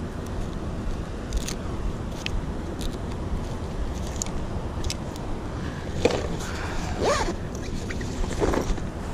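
Wind rumbling on the microphone, with scattered small clicks and rustles of gloved hands handling a fishing rod. The rustling of a braided mesh rod sleeve sliding over the rod and spinning reel gets louder from about six seconds in.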